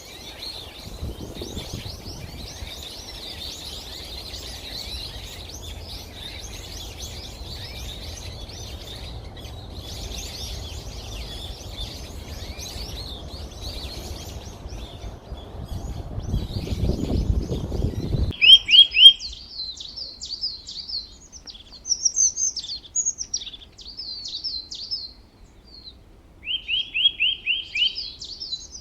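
A flock of birds chirping and chattering over a low background rumble. At about 18 s the sound changes abruptly to separate, clearer chirps with a few short, rapid trills, which are louder.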